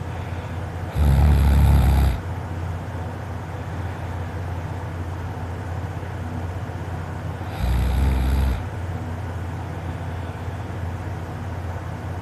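A sleeping person snoring: two loud snores, each about a second long, some six and a half seconds apart, over a steady low background noise.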